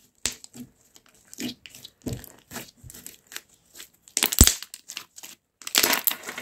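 Starch-thickened homemade slime being squeezed and pulled by hand, giving irregular crackles and pops, with a louder run of them about four seconds in and again near the end.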